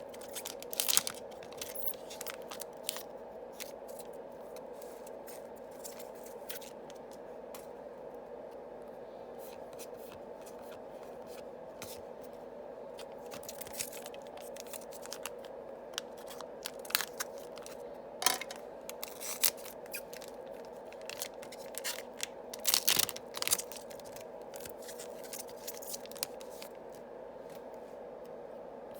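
Yu-Gi-Oh booster packs being opened and the cards handled: foil wrappers crinkling and tearing and cards sliding and flicking in scattered bursts, loudest about a second in and twice more in the second half. A steady low hum sits underneath.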